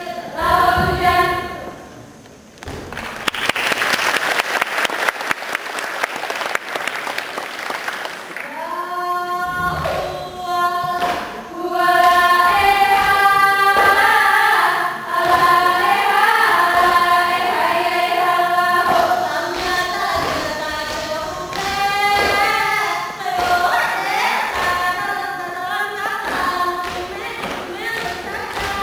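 Group of kneeling Saman dancers singing together in unison, with sharp claps and slaps of their hands against their bodies keeping time. The full singing comes in about nine seconds in, after a few seconds of rushing noise.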